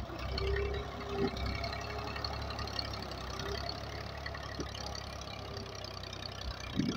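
Massey Ferguson 240 tractor's three-cylinder diesel engine running steadily under load as the tractor pushes soil with its front blade.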